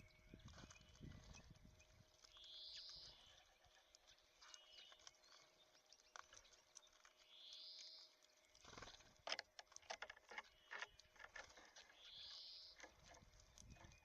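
Small songbirds at a seed feeder: a short high call repeated three times about five seconds apart, and a quick run of sharp taps near the middle, typical of birds pecking and cracking sunflower seeds. Faint.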